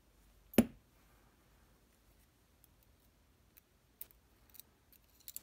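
One sharp knock about half a second in, then a few light metallic clicks near the end: small lock parts and tools being handled while a pin-tumbler lock is taken apart.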